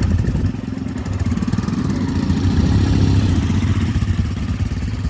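Motorcycle engine running at idle, its revs swelling slightly about two seconds in before settling.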